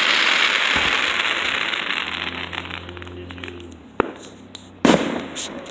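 Fireworks shells going off. The crackle of a burst dies away over the first couple of seconds. A sharp bang comes about four seconds in, and a louder boom just before the end.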